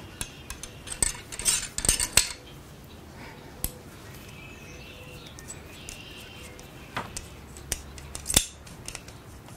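Ramrod tapping and scraping inside a muzzleloading shotgun barrel as the charge is seated: a quick run of sharp clicks over the first two seconds, then a few single clicks while the long rod is drawn back out of the barrel.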